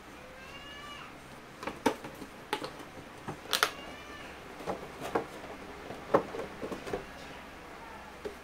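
Clear plastic blister tray and cardboard packaging being handled and slid out of a box, with a run of irregular clicks and crackles of the plastic. It also gives a couple of short, high squeaks, one near the start and one about halfway.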